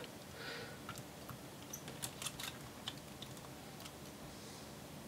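Faint, scattered small clicks and light taps of a small screwdriver and fingers handling the open laptop chassis, with a short soft brushing sound near the start.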